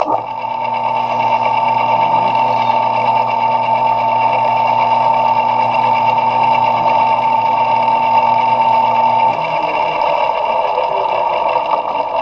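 Metal lathe running with a steady hum and a high whine. About nine seconds in the hum and whine drop out, leaving a rougher running noise.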